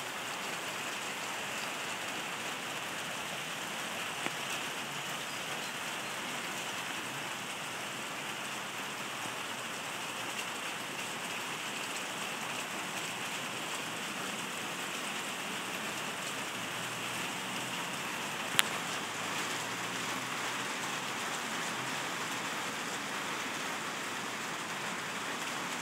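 Steady rain falling, a fairly even hiss of drops on surfaces, with a single sharp tick about three-quarters of the way through.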